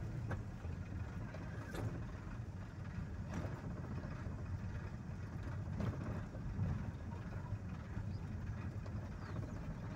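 A vehicle's engine and tyres running at a steady low rumble, heard from inside the cabin while driving on a paved road, with a few faint knocks.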